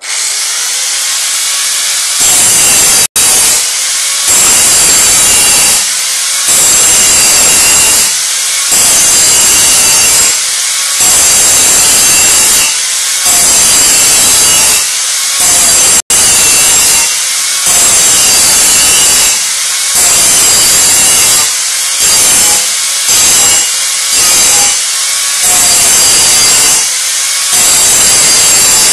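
Electric angle grinder cutting through car-body sheet metal in repeated passes of a couple of seconds each, easing off briefly between them, with a high ringing whine over the cutting noise.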